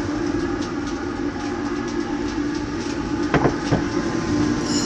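Homemade waste-motor-oil furnace burning with a steady low roar, with scattered crackles and ticks from its hot steel tank: the sign of the temperature coming down after a runaway. About three and a half seconds in come two sharp sounds, a split second apart, each falling in pitch.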